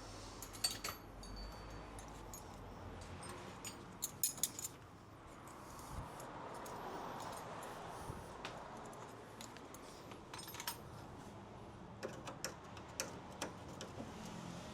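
Hand tools clinking and tapping on metal while a cover is worked off a Porsche 912's rear torsion-bar suspension: scattered light metallic clicks, with a short cluster about four seconds in and several more near the end.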